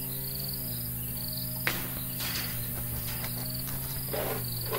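Insects chirping in short high-pitched pulsed trains, repeating over and over, over a steady low hum. A sharp click sounds about a second and a half in.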